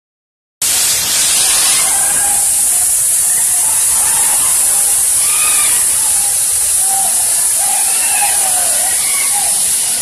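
Waterfall rushing in a steady, loud hiss of falling water and spray, with faint voices of a crowd calling out behind it.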